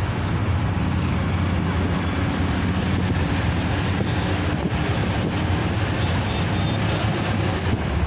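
Steady engine rumble and road noise inside a moving bus.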